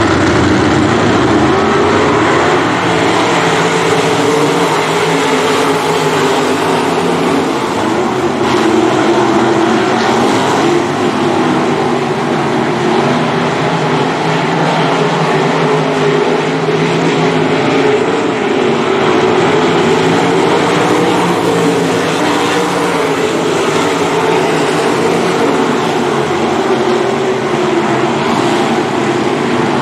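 A pack of 305 sprint cars racing, several 305-cubic-inch V8 engines running hard together as one continuous blare, its pitch wavering slowly up and down as the cars circle the track.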